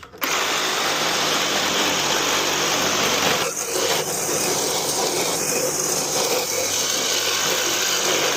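Power saw cutting through the metal and copper tubing of a tankless water heater, running steadily with a brief let-up about three and a half seconds in.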